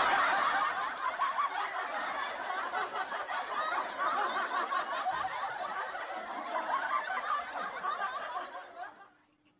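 Laughter: a dense stretch of snickering and chuckling that starts abruptly and cuts off about nine seconds in.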